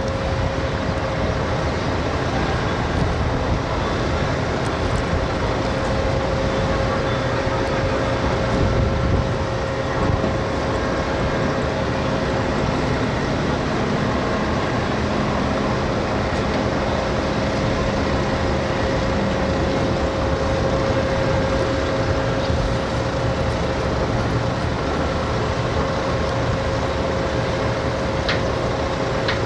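Steady drone of harbour machinery beside a moored cargo ship, with a constant mid-pitched hum and a low rumble. A second, lower hum joins in for several seconds midway.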